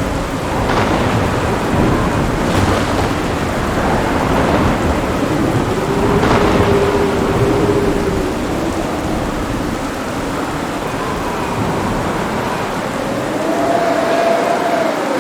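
Heavy rain pouring steadily while thunder rumbles low and long, with a few sharper cracks in the first half; the rumble dies away near the end, leaving the rain.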